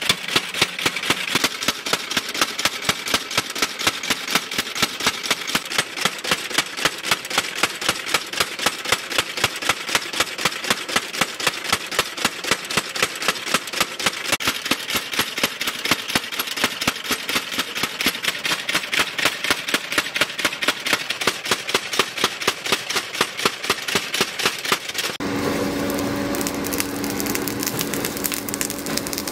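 Mechanical power hammer pounding a red-hot leaf-spring blade, steady blows at about two to three a second. About 25 seconds in it gives way to a forge fire: crackling coals under a steady hum.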